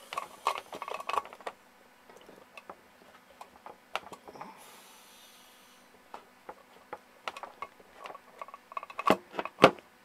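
Refrigeration manifold gauge set and hoses being handled, with scattered clicks and knocks. About halfway through comes a short hiss of gas as a small charge is let into the repaired system for a pressure test. Two sharp knocks near the end are the loudest sounds.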